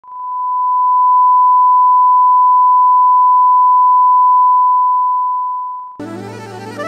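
Line-up test tone played with a video tape's colour-bar leader: one steady high pitch that fades in at the start and fades out a little before six seconds. Music starts just before the end.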